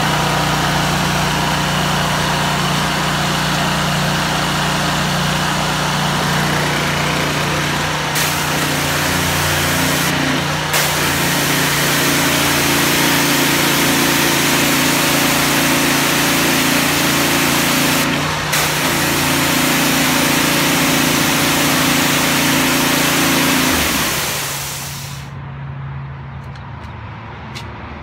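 Engine-driven hot-water pressure washer running with the spray wand's trigger held open, bleeding trapped air out of the pump: a steady engine tone under a loud hiss of spray, with two brief breaks, then engine and spray stop near the end.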